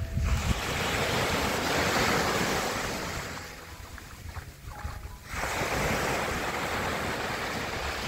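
Sea waves breaking and washing up a shingle beach, with wind buffeting the microphone. The surf sound dips for a couple of seconds about halfway through, then comes back.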